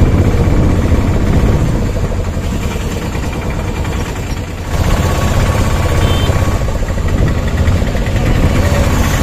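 Auto-rickshaw engine running as the three-wheeler drives off, heard from inside its open cabin. The sound is a dense low rumble that dips for a moment and picks up again just before five seconds in.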